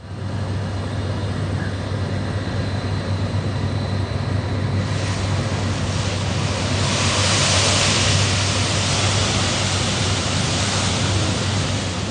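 Turkey-fryer oil fire burning with a steady, rushing roar. A hiss joins in about five seconds in and is loudest around seven to nine seconds.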